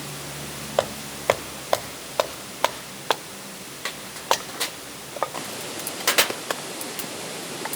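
A series of sharp chopping knocks, about two a second for the first few seconds, then a few irregular ones and a quick flurry near the end, over a steady low hiss.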